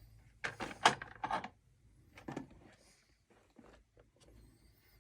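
Short knocks and rustles of small objects being handled: a cluster of clicks in the first second and a half, one more a second later, then a few faint ones.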